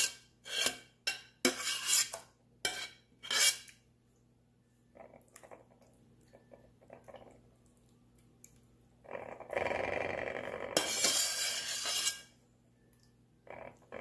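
Metal ladle knocking and clinking against a pot several times in quick succession, then about three seconds of loud, steady scraping of metal through sauce against cookware as meat sauce is scooped and spread in a glass baking dish.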